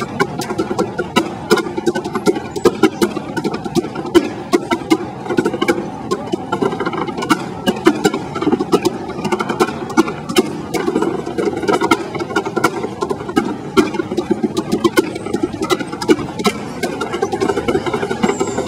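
Tap shoes striking portable wooden boards in fast, irregular rhythms of sharp clicks, with a steady low hum underneath.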